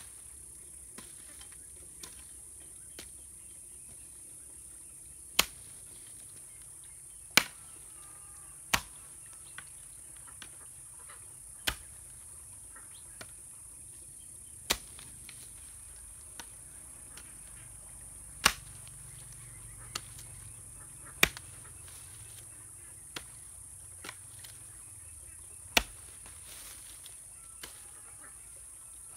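A hoe blade chopping into red clay soil: a dozen or so sharp strikes, one to three seconds apart and unevenly spaced, with lighter scrapes and ticks between. A steady high-pitched hiss runs behind.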